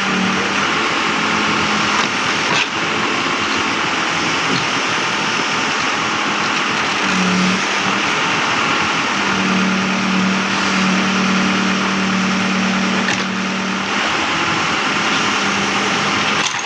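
Backhoe engine running steadily under working load, with a low hum that grows stronger for a few seconds past the middle.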